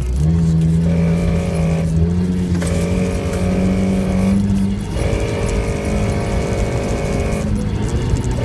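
Off-road 4x4's engine pulling under load on a rough trail, its note rising slowly for about four and a half seconds. A set of higher steady tones cuts in and out every second or two over it.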